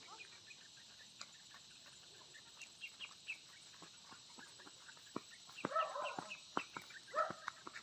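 Chickens clucking faintly in short, scattered calls, busier in the second half.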